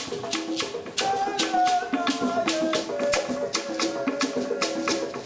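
African-style hand drums and a gourd shaker playing an even, driving rhythm. About a second in, a voice comes in with a long wavering note that slowly falls in pitch over the drumming.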